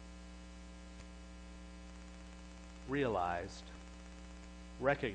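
Steady electrical mains hum, low and unbroken, with a man's voice speaking briefly about three seconds in and again near the end.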